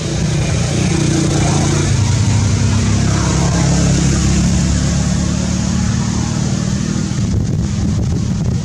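Motor vehicle engine running close by, a steady low hum that thins out near the end.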